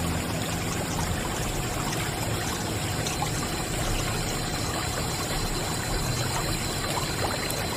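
A thin stream of water trickling steadily from a miniature pump spout and along a plastic irrigation channel onto sand, with a low hum underneath.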